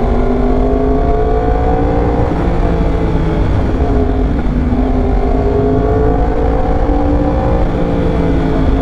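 2021 Yamaha R1's crossplane inline-four, fitted with a loud aftermarket exhaust, running under way at road speed. The engine note climbs slightly, drops back about two seconds in, climbs again and drops once more near the end. A steady low wind rumble lies underneath.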